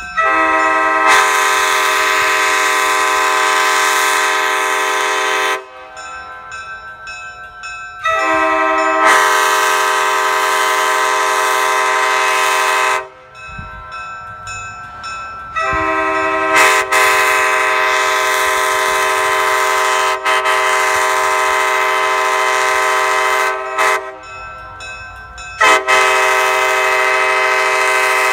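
Nathan Airchime K5LA five-chime locomotive air horn with 1980s bells, sounding its chord in a series of long blasts of about five seconds each with short breaks between.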